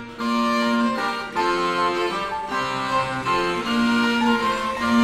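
Instrumental background music: a melody of held notes over a steady accompaniment.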